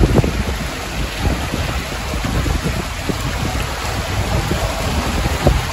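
Steady rush of splashing, falling water, with a heavy low rumble.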